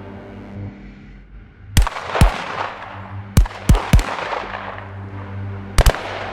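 Seven gunshots from shotguns or rifles, each sharp crack followed by a reverberant tail. There are two shots about 2 s in, three in quick succession about a second later, and a fast pair near the end. Steady low tones sound underneath.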